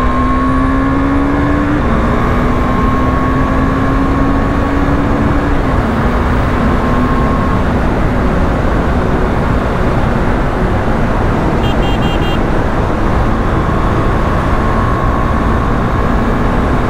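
KTM Duke 390 single-cylinder engine pulling hard at highway speed under heavy wind rush. The engine note climbs and drops back twice in the first six seconds as it is shifted up through the gears, then holds fairly steady at cruise.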